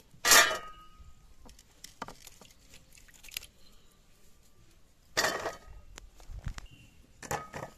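Wet drumstick (moringa pod) pieces dropped by hand onto a stainless steel plate, clattering with a short metallic ring. The clatter comes three times, just after the start, about five seconds in and again about two seconds later, with lighter taps between.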